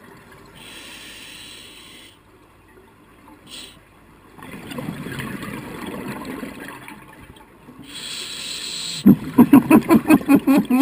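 Scuba regulator breathing underwater: a hissing inhale, a long bubbling exhale, then another hissing inhale. Near the end comes a fast, pulsing burst of exhaled bubbles.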